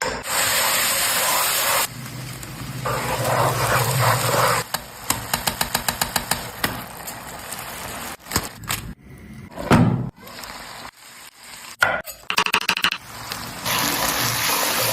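Kitchen cooking sounds: stretches of steady frying hiss, broken by a quick run of knocks about six a second, scattered sharp clicks and one loud knock about ten seconds in.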